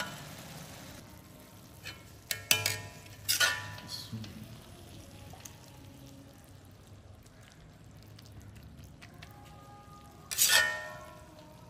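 Steel ladle scraping through the food and clinking against an iron karahi and a plate while dishing up, with a few sharp ringing clinks about two to three and a half seconds in and one louder ringing clank near the end.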